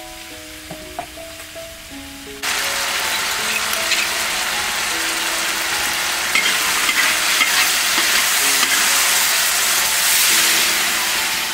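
Chopped beef offal frying in a hot wok, a loud sizzle that starts suddenly about two and a half seconds in and then runs on steadily. Light background music plays underneath and is heard alone before the sizzle starts.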